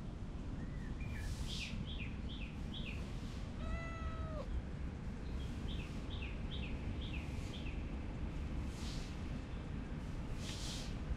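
A cat gives one short meow about four seconds in. Around it, two quick runs of short, high, falling bird chirps and a steady low outdoor rumble.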